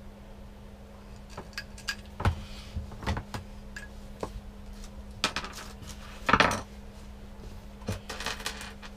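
Scattered clicks, knocks and clatter of plastic plumbing parts and hose being handled, the loudest a short rattle about six seconds in, over a steady low hum.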